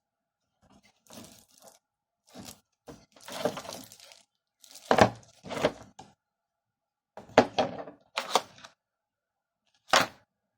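Packaging and contents being handled during an unboxing: a string of irregular short knocks, rustles and scrapes, with the sharpest knocks about halfway through and near the end.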